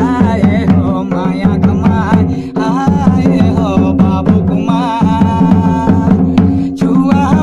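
A man singing a Bhadariya jhumar folk song to the steady beat of his own dholak drumming.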